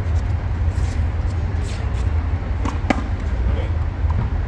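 A small rubber handball bouncing twice on a concrete court, two sharp knocks close together about three seconds in, over a steady low rumble.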